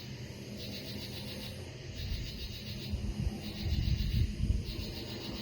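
Night insects chirping in repeated pulsed bursts, about one burst every second and a half, with a low rumble in the middle.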